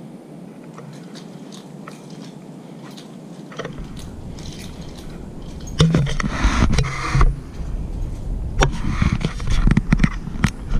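Handling noise from a handheld camera as it is moved and turned: rubbing, scraping and knocks on the microphone over a low rumble, densest about six seconds in, with separate knocks after.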